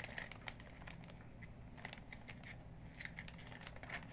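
Faint rustling and crinkling of packaging, with scattered small clicks, as the accessories in a drone's box are handled and sorted through.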